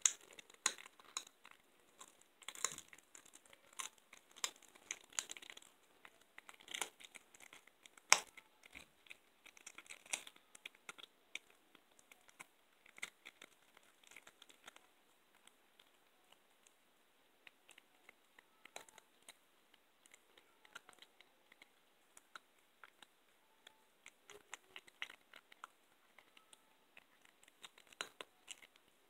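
A young blue tortoiseshell cat chewing a raw chicken back: irregular sharp crunches and clicks of teeth on bone and cartilage. They come thick and fast for about the first ten seconds, thin out, then pick up again near the end.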